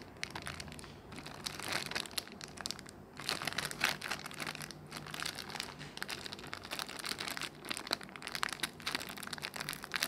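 Clear plastic packaging bag crinkling as hands handle it, a dense, irregular run of crackles.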